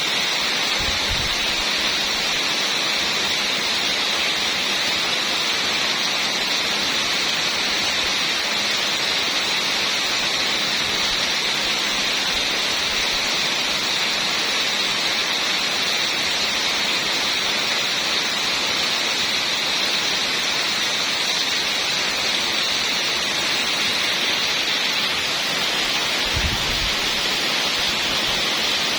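Heavy rain pouring steadily, a dense even hiss. A brief low rumble comes near the end.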